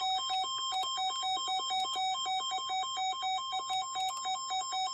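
Electronic emergency alert tone from an Emergency Alert System broadcast: two beeping pitches alternate rapidly in a steady warbling pattern.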